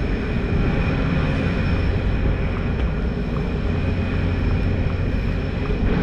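Boat engine running with a steady low drone and a faint constant high whine.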